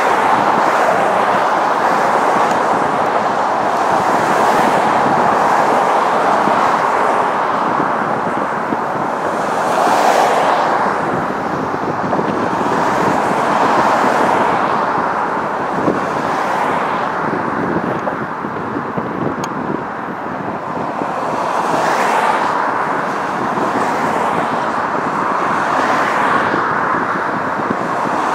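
Steady road traffic noise of cars passing close by one after another, each swelling and fading over a constant hiss of tyres.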